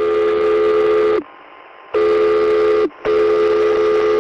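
Fire-brigade dispatch alarm tone sounding in three long blasts, each a steady chord of several pitches that droops downward as it cuts off.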